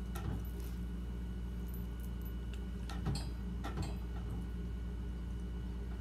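Steady low hum with a few faint clicks and taps, the loudest about three seconds in, from handling a bubble curling wand while winding hair around it.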